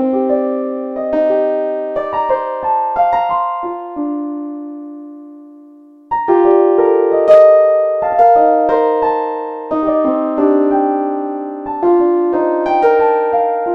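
Background music played on a keyboard: a gentle melody of struck notes that ring and fade. A few seconds in, one long note dies away, and about two seconds later the playing picks up again, louder.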